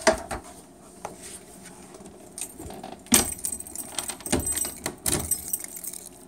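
A sharp knock as the ballot bin's rear door is pushed shut, then a bunch of keys jangling in bursts from about three seconds in as a key is turned in the door's lock.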